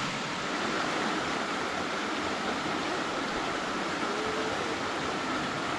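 A swarm of cicadas in a steady, unbroken chorus: a constant high drone over a dense hiss.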